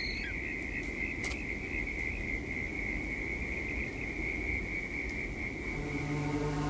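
Night-time forest ambience: a steady, high insect trill over a low rumble, with a few faint clicks about a second in. Music fades in near the end.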